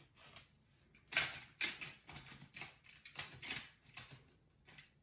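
Small plastic and metal clicks and clacks of an HO scale model locomotive and tender being fitted onto the track rails by hand, in an irregular string with the loudest about a second in.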